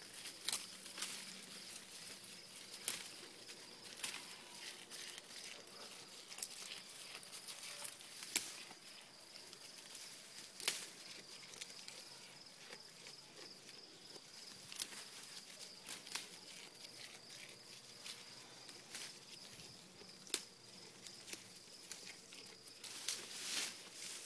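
Oberhasli goat browsing on weeds close by: soft, irregular snaps and rustles of leaves and stems being torn off and chewed, with a louder patch near the end.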